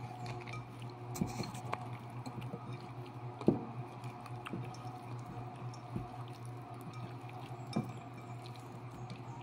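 Faint wet squishing of a hand mixing seasoned raw chicken wings in a bowl, with a few light clicks scattered through, over a steady low hum.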